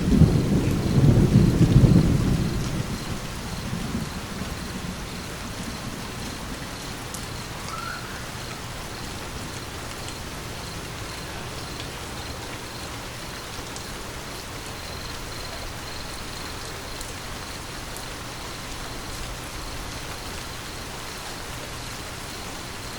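Steady rain falling, with a low thunder rumble in the first few seconds that fades away.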